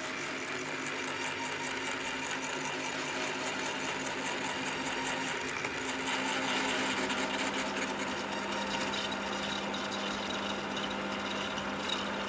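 Drill press running steadily with a low motor hum while a freshly resharpened twist drill bit cuts into a steel plate, with a hiss of cutting over the hum. It gets a little louder about halfway through.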